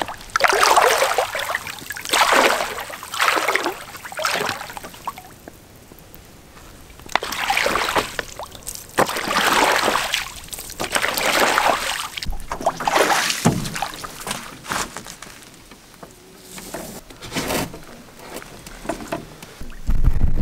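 Lake water sloshing and splashing around a person wading in the shallows and dipping a water-filter bag to fill it. It comes in uneven swells of a second or two, with quieter gaps between.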